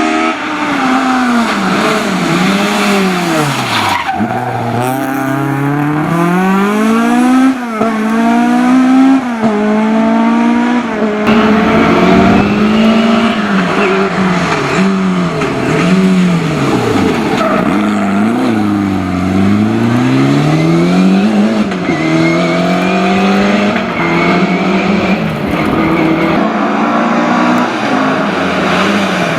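Historic rally car engine run hard through a stage, its pitch climbing and falling repeatedly as it revs up through the gears and drops back on lifts and braking.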